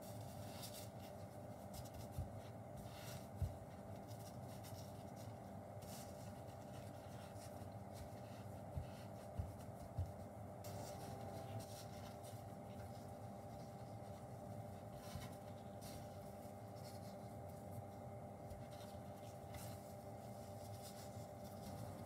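Faint scuffing and rubbing of plastic-gloved fingers on a wooden cutting board while handling and pulling apart pieces of powder-dusted nama chocolate, with a few soft knocks in the first half as pieces are set down, over a steady hum.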